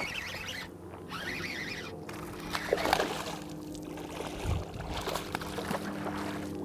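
Hooked bass splashing and thrashing at the water's surface while being reeled in, with the loudest splash about three seconds in; a steady low hum underneath.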